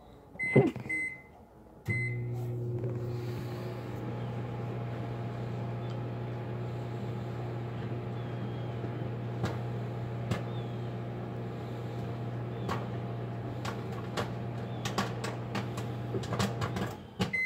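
Microwave oven keypad beeps, then the oven starts up with a steady electrical hum as it heats a bag of popcorn. Scattered sharp pops from the kernels come more often toward the end. The hum cuts off suddenly just before the end, followed by a beep.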